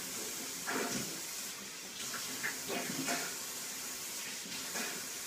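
Steady rushing hiss of running water, with a person's short faint coughs and gasps about a second in, in the middle and near the end, as he chokes on a spoonful of dry ground cinnamon.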